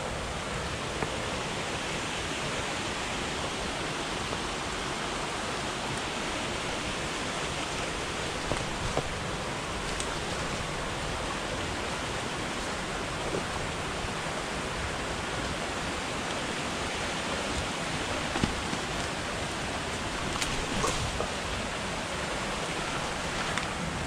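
Creek water rushing steadily, an even hiss that holds at the same level throughout. A few faint short clicks and knocks sound over it now and then.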